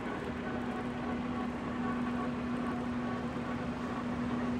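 OMP Prealpine NS-300 gap-bed lathe running with its spindle turning at 210 rpm: a steady hum with one even tone and no knocking or grinding, as the speaker says there is no noise at all in the gearbox or spindle.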